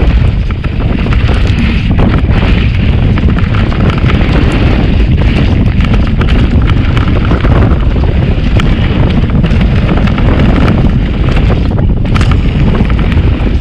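Mountain bike riding down a dirt trail: loud, steady wind buffeting on the microphone with tyre rumble underneath, and frequent short rattles and knocks from the bike over rough ground.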